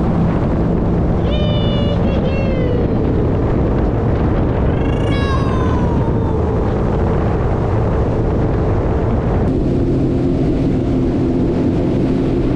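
Jet ski engine running at speed with a steady hum and rushing spray and wind. Two high, falling voice calls come about a second in and again about five seconds in. The engine note changes near the end.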